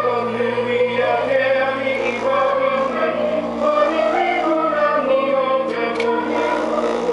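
Hawaiian music with singing, the accompaniment to a hula dance, held steady with sustained tones and a wavering vocal melody.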